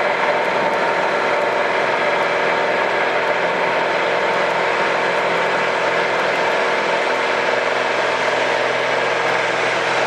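Piper PA-28R-180 Cherokee Arrow's four-cylinder Lycoming IO-360 engine and propeller running steadily at full takeoff power during the takeoff roll, heard from inside the cabin.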